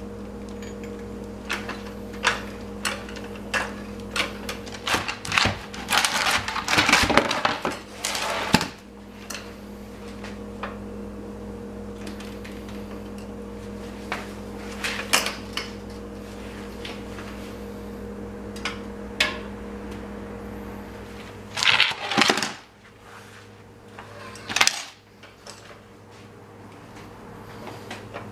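Scattered metallic clinks, knocks and clatter from tools and parts being handled, busiest in a run a few seconds in and again in short bursts near the end. A steady hum sits underneath and stops about three quarters of the way through.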